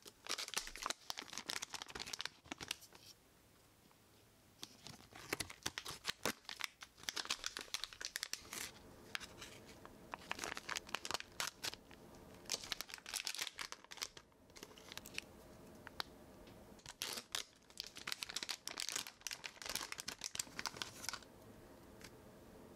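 Plastic packaging of craft-stick packs crinkling as it is handled and torn open, in several bursts of crackling with short pauses between.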